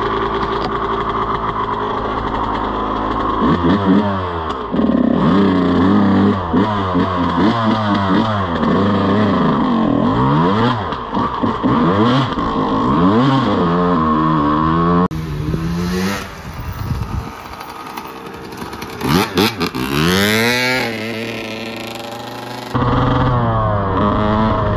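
Yamaha YZ125 125cc two-stroke single-cylinder dirt bike engine, running steadily at first and then revving up and down over and over as the bike is ridden, its pitch rising and falling with each twist of the throttle.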